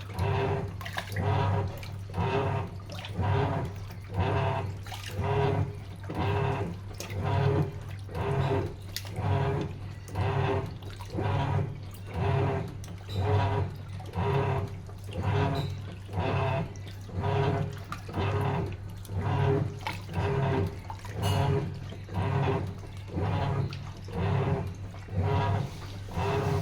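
Sharp washing machine in its wash cycle, water sloshing in a regular rhythm about once a second over a steady low motor hum.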